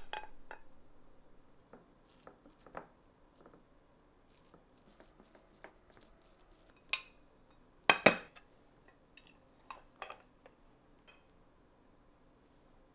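Kitchen dishes and utensils being handled: scattered light taps and clicks, with two sharp clinks about seven and eight seconds in. A frying sizzle dies away in the first second or so.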